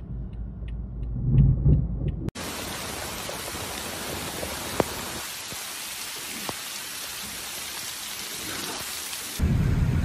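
Heavy rain pouring down steadily, with a couple of sharp taps, beginning abruptly about two seconds in. Before it and again near the end there is the low road rumble of a moving car heard from inside.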